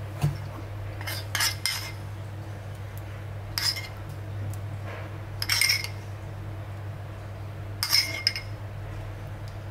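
A metal spoon clinking and scraping against a bowl while scooping out sauce, in four short bursts a couple of seconds apart, over a steady low hum.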